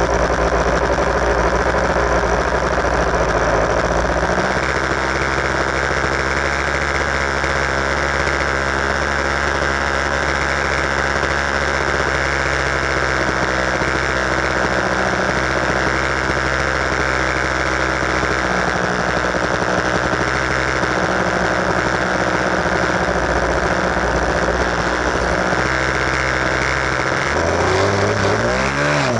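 RC model airplane engine running at a steady pitch, with wind buffeting the microphone. Near the end the engine's pitch dips and climbs again.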